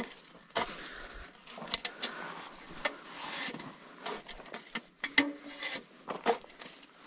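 Irregular sharp clicks and knocks with short rustling swishes from hand work planting tobacco seedlings.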